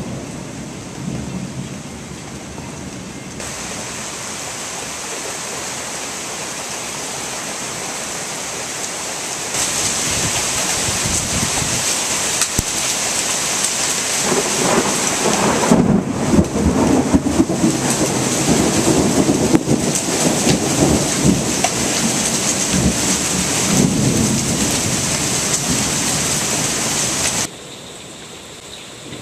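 Heavy rain pouring steadily in a thunderstorm, growing louder in two steps. From about halfway through, a long, uneven rumble of thunder rolls under the rain. The rain sound drops off abruptly near the end.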